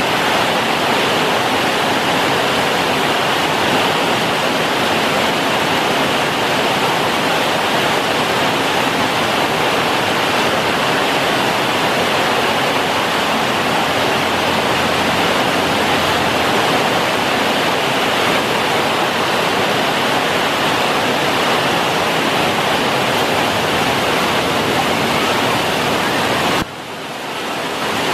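A steady, loud rushing hiss with no rhythm or pitch, dipping briefly near the end.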